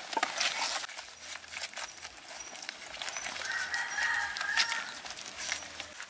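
Young puppies eating food off a banana leaf: many quick wet chewing and smacking clicks. About halfway through, a drawn-out high-pitched call lasts about a second and a half.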